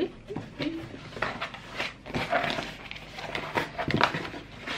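A new MacBook Pro's box and packaging being handled and opened: irregular rustling, scraping and light knocks, the loudest knock about four seconds in.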